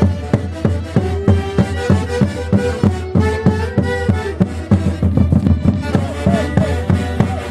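Orquesta playing santiago, the festival music of the Huancayo region: a steady low drum beat about two to three times a second under held melody lines.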